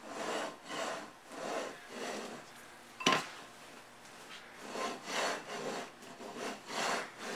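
Metal dog bowl scraped back and forth over a tile floor in short repeated strokes, about one or two a second, fewer in the middle, with one sharp knock about three seconds in.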